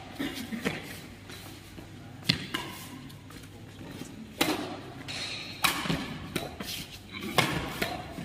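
Badminton rackets striking a shuttlecock back and forth in a rally: about five sharp hits, one every second or two.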